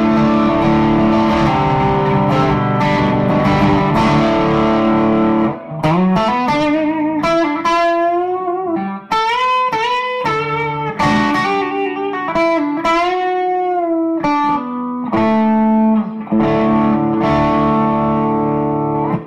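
Gibson ES-335 electric guitar played through a Bad Cat Bobcat 5R tube combo amp. It rings out with held chords, moves into a single-note lead line with string bends and vibrato, then goes back to chords, and is cut off sharply near the end.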